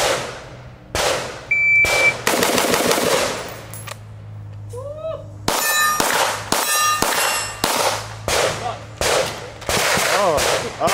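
Gunfire from a timed rifle-to-pistol drill: several AR-style rifle shots in the first couple of seconds, a short lull while the shooter switches weapons, then a fast string of about ten pistol shots. Some hits set steel targets ringing with a short metallic ping.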